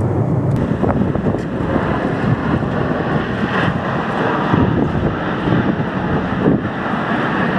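Jet roar of F/A-18 Super Hornets flying low in formation, a loud, steady rumble mixed with wind buffeting on the microphone.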